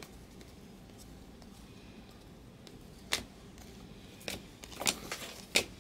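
Chrome trading cards being flipped through by hand: a quiet stretch, then a few sharp card clicks in the second half.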